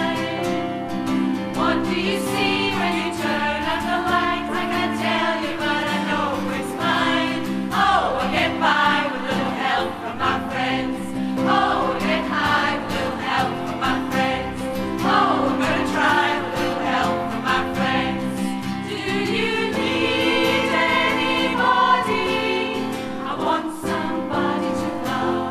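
Choir of mostly women singing together, with sustained low notes underneath the voices.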